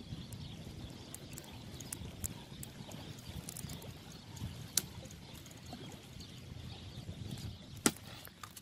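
Steady low outdoor rumble of wind and flowing river water, with scattered small clicks and a sharper click a little before the end.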